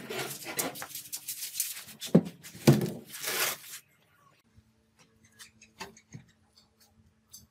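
Rough scraping or tearing strokes of hand work for about four seconds, then a few faint clicks.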